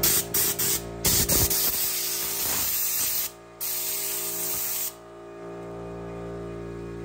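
Compressed-air blow gun blowing carbon out of a clogged muffler spark arrester screen: a few short hissing blasts, then a longer blast of about two seconds, a brief pause and another blast, cutting off about five seconds in.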